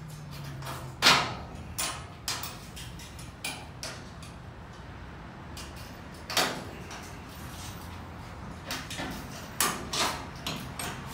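Metal knocks and clanks from a portable wheeled metal shelving unit as its shelves and brackets are handled and set in place. There are a dozen or so separate knocks, the loudest about a second in and another about six and a half seconds in.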